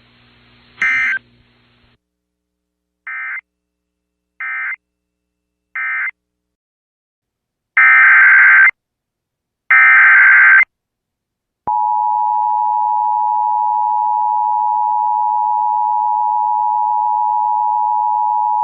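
Emergency Alert System SAME data bursts: three short bursts (the end-of-message code of the previous alert), then two longer header bursts. About two-thirds of the way in, a single steady alert tone starts and holds: the 1050 Hz NOAA Weather Radio warning alarm.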